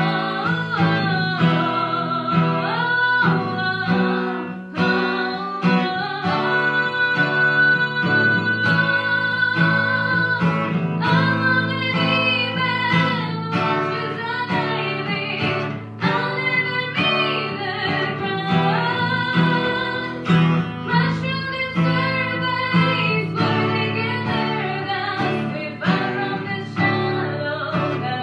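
A woman singing a melody with held, wavering notes, accompanied by a strummed acoustic guitar.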